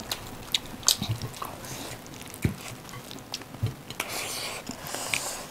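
Close-up eating sounds of rice and chicken gravy eaten by hand: chewing with scattered short wet smacks and mouth clicks at irregular intervals.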